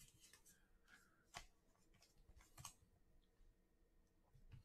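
Near silence, with a few faint clicks and rustles of trading cards being handled between the fingers.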